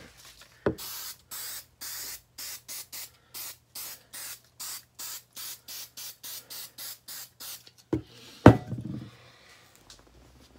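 Aerosol spray paint can sprayed in quick short bursts, about three a second, a steady hiss with each press. Near the end come two knocks, the second the loudest sound.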